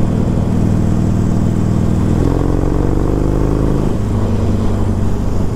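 Harley-Davidson Forty-Eight's 1200 cc V-twin, fitted with Screamin Eagle Street Cannon mufflers, running at road speed under way, with wind noise on the mount-level microphone. A second, higher engine note joins for a second or two in the middle as the Simson mopeds are overtaken. The Harley's note changes about four seconds in.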